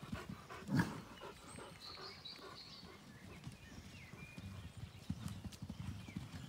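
Hooves of a herd of mares trotting and cantering over soft, wet grass: a rapid, irregular patter of dull hoofbeats, with one louder thud about a second in.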